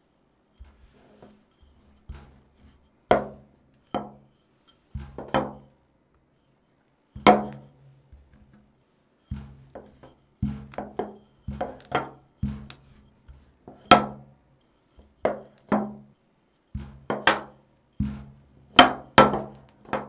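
Wooden rolling pin rolling bagel dough flat on a wooden tabletop, with a low rumble during the strokes and uneven wooden knocks as the pin meets the table, more frequent in the second half.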